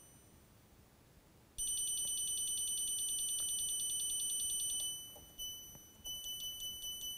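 Navien NCB700 boiler control panel beeping as its down-arrow key is held: a rapid run of key beeps for about three seconds starting a second and a half in, then a single beep, then steady beeps about four a second, each beep marking a step down in the central heating output setting.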